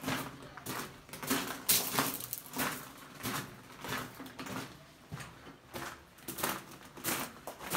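Footsteps crunching on loose gravel at a walking pace, about two steps a second, in a vaulted stone tunnel.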